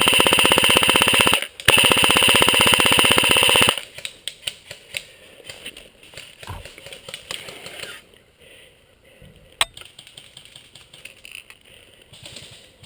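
Airsoft AK-pattern rifle firing two long full-auto bursts, a fast buzzing rattle, broken by a short pause. Then quieter footsteps and rustling through leaf litter, with one sharp click a little before the ten-second mark.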